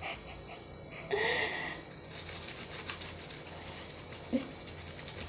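Faint rubbing and scraping of a cut lime half being rubbed over a charred, fire-roasted corn cob. A brief, short pitched voice sound comes about a second in.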